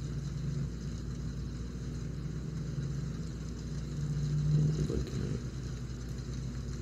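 A steady low hum with a faint droning tone that comes and goes, swelling a little about four and a half seconds in.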